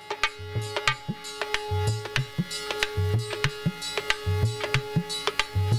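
Instrumental interlude of a Malhar folk song: a hand drum plays a quick rhythm of deep bass strokes and sharp higher slaps, over a held steady note from a melodic instrument.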